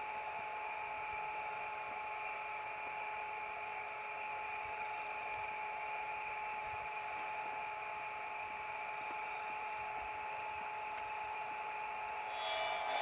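A power saw running steadily at one constant pitch, then growing louder and harsher near the end as it bites into a cut.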